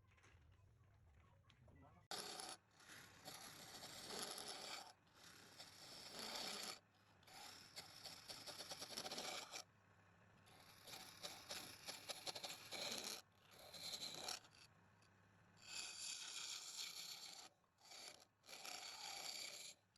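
Repeated scraping passes against wood spinning on a lathe, starting about two seconds in: about eight strokes of one to three seconds each, with short pauses between.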